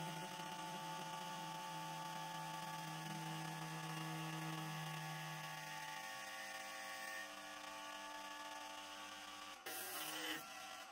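Axminster Engineer Series metal lathe running, with a steady motor hum and whine as it spins a wooden sander drum on a stainless rod. One of the low tones stops about six seconds in. Near the end comes a short hissing rasp as a sanding block is pressed against the spinning wood.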